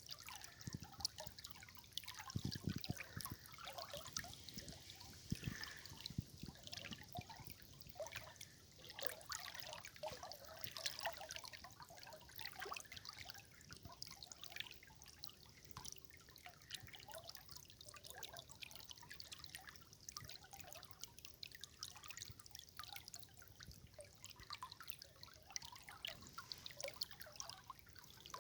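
River water trickling: a faint, steady, irregular patter of small splashes and drips.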